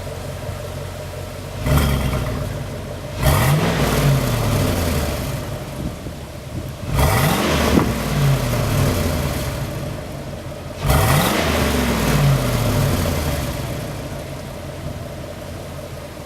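Chevrolet 8.1-litre Vortec big-block V8 in a Suburban 2500, running through its stock muffler: it idles, then is revved four times, a light blip followed by three strong revs, each rising and falling back, before it settles back to a steady idle.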